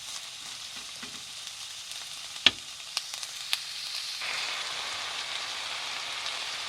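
Food sizzling in a frying pan as it is stir-fried, with one sharp clack of a utensil about two and a half seconds in and a few lighter taps after it. About four seconds in, the sizzle suddenly grows louder and fuller.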